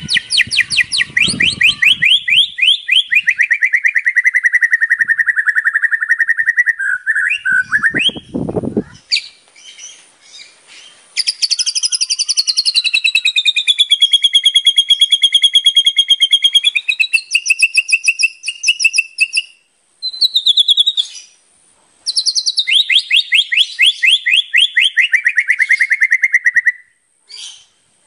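White-rumped shama (murai batu) singing in full song: rapid trills that fall in pitch, then a long two-toned whistled phrase that slides down, and another fast falling trill near the end. A brief low thump comes about eight seconds in.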